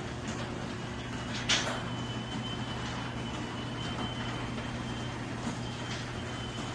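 LiftMaster garage door opener running as the door travels: a steady motor hum with a thin high whine over it. One sharp clack sounds about a second and a half in.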